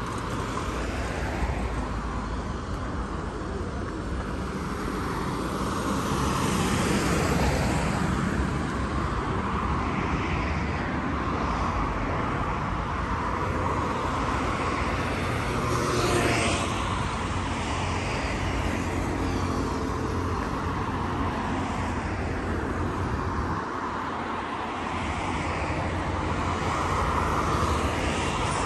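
Outdoor urban ambience: a steady rushing noise, like distant traffic or an aircraft passing overhead, that swells and eases slowly.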